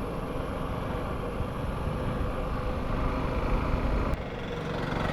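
Riding noise from a moving motorcycle: engine and wind noise, steady, dropping suddenly in level about four seconds in.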